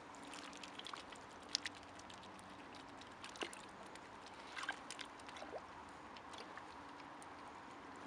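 Faint sloshing and trickling of shallow water as Canada geese dabble and drink, with scattered soft clicks and small splashes.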